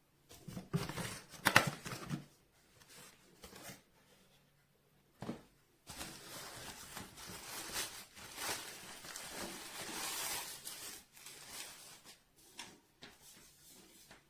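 Intermittent rustling and handling noises: a flurry of short scrapes and clicks at the start, scattered clicks, then a longer stretch of uneven rustling in the middle.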